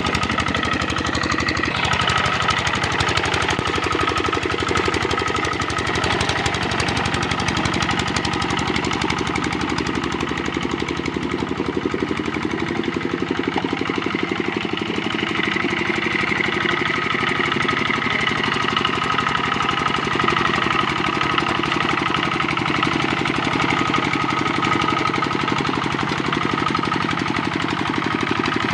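Kubota RD65 single-cylinder diesel engine on a hand tractor, running steadily with a fast, even knocking beat.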